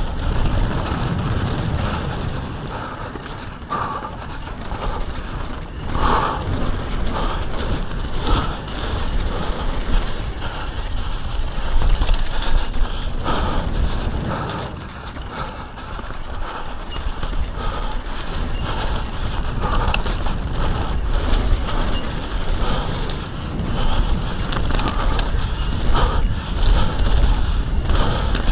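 Mountain bike descending a dirt downhill track at speed: tyres on loose dirt, with frequent rattles and knocks from the bike over bumps, and wind rumbling on the microphone.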